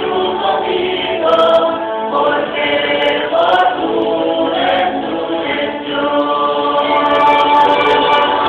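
Mixed choir of men's and women's voices singing in harmony, holding sustained notes together.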